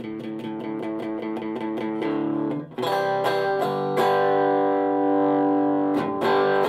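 Electric guitar played through a Donner 5-watt mini amplifier on its clean sound, which is not fully clean. A run of quickly picked notes is followed, after a brief break, by chords struck and left ringing, with a fresh strike near the end.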